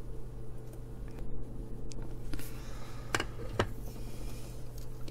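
A few small, sharp clicks and taps from handling a surface-mount chip on a circuit board while lining it up, the clearest about three seconds in. A steady low electrical hum runs underneath.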